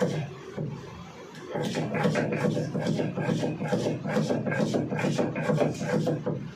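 Stone-on-stone grinding on a sil-batta: the hand stone rubbed back and forth over the flat grinding slab in quick repeated strokes, crushing onion into a spice paste. The strokes pause briefly about a second in, then resume.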